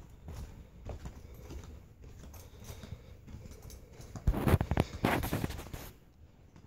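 Muffled footsteps climbing carpeted stairs, soft thuds roughly every half second, then a louder burst of rustling about four seconds in.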